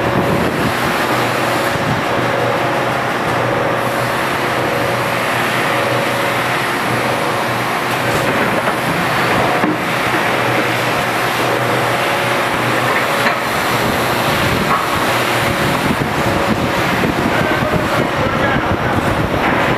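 Industrial machinery running steadily: a loud, even drone with a constant low hum and a steady higher tone.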